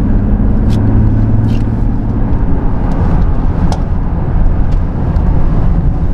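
Mercedes-Benz GLE 350d's six-cylinder diesel engine and tyre rumble heard from inside the cabin while driving: a steady engine drone for the first couple of seconds, then mostly low road rumble, with a few faint clicks.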